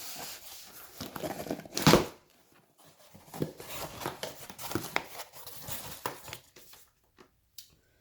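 Shipping packaging being handled and torn open by hand, crinkling and tearing in irregular bursts. The loudest rip comes about two seconds in, and the sound dies down near the end.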